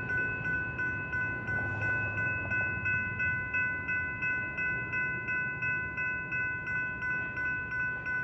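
Railroad crossing warning bell ringing steadily, about two strikes a second, while the crossing signals are active with the gates down. A low train rumble fades away beneath it over the first few seconds.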